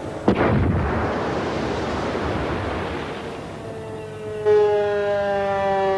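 Underwater explosive charge going off in a flooded steel forming mould, blasting an aluminium boat hull into shape: a sudden bang about a third of a second in, then about three seconds of rushing spray noise that fades away. Music with held notes comes in about four seconds in.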